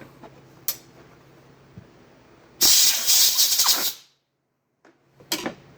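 A compressed-air blow gun gives one loud blast of hissing air for about a second and a half, blowing off cleaned roller lifter parts. A short sharp click comes before it and another after it.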